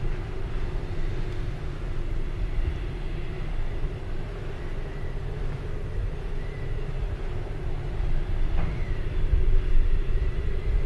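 Steady low rumble with a faint held hum above it, growing a little louder near the end. A short soft noise sounds about eight and a half seconds in.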